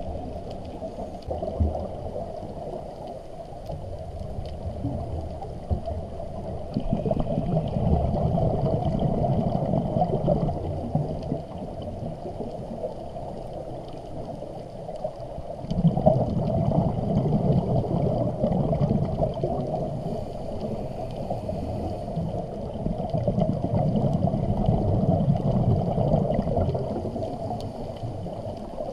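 Muffled underwater gurgling of scuba exhalation bubbles from a diver's regulator, heard through an underwater camera housing. It swells in three louder surges lasting several seconds each.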